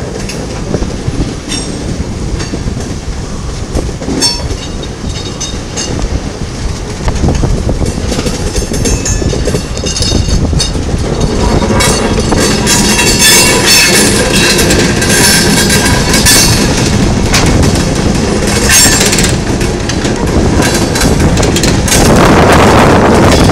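California Northern Railroad diesel locomotive 1569 hauling a covered hopper car along the track: engine rumble with the wheels clicking over the rail joints. From about halfway, high wheel squealing rises over it for several seconds. Near the end, wind buffets the microphone.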